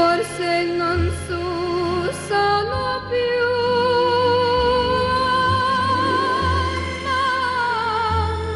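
Woman singing a 1960 pop ballad in Italian over orchestral backing. After a few short notes she holds one long note with a wavering vibrato, and it falls away near the end.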